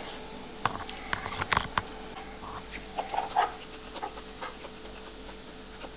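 Eating sounds picked up by a clip-on microphone: chewing and mouth noises, with scattered light clicks and scrapes of a spoon against the wooden serving board and plates.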